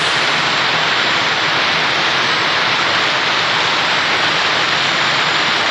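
Heavy rain pouring down in a steady, loud downpour, an even rushing hiss of falling water.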